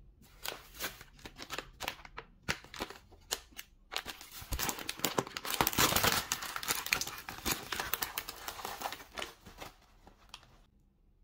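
Crinkling plastic packaging: a thin plastic carrier bag and a packaged bun's plastic wrapper being handled and pulled open. It is busiest in the middle and stops shortly before the end.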